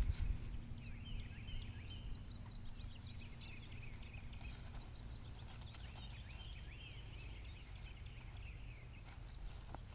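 Small birds chirping and singing in the trees, many short quick calls, busiest through the middle, over a steady low rumble.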